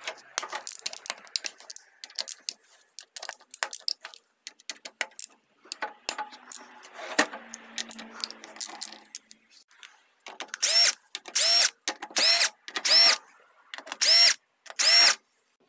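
Socket ratchet clicking and metal tool clinks as the small bolts holding the Mechatronic plate to a ZF6HP28 automatic transmission's valve body are undone. Near the end come six loud, short ratchet buzzes in a row, each rising and falling in pitch, as the bolts are spun out quickly.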